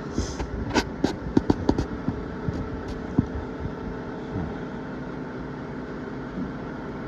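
A handful of sharp clicks and knocks in the first three seconds, then only a steady mechanical hum.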